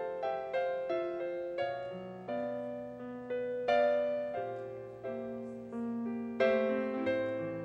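Piano playing a slow, gentle passage: single notes and chords struck roughly every half second to second, each left to ring and die away, with the firmest chords about four and six and a half seconds in.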